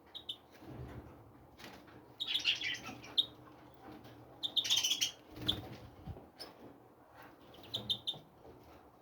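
Small songbirds chirping and twittering in short bursts, the busiest about two to three seconds and about five seconds in, with brief rustles of movement between.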